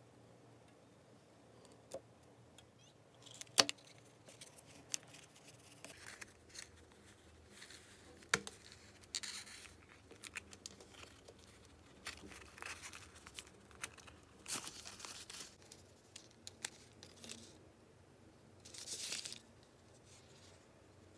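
Quiet handling sounds: a paper cup mould being torn and peeled away from set candle wax, in short ripping and crinkling rasps, with scattered light clicks and taps.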